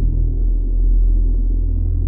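Background music: low, sustained droning tones that hold steady.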